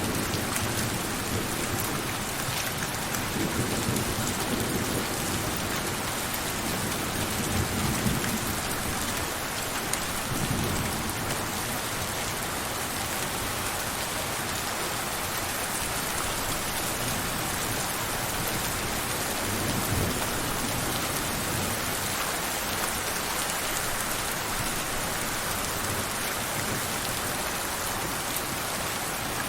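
Steady heavy rain pattering down, with a few low rumbles of distant thunder swelling and fading.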